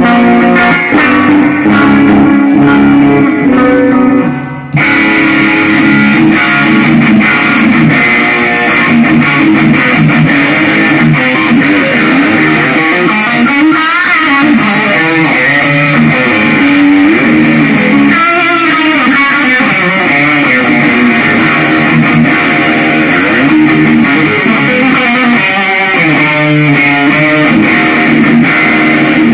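Electric guitar playing continuously during a sound check. About five seconds in it drops out for a moment, then comes back fuller and brighter.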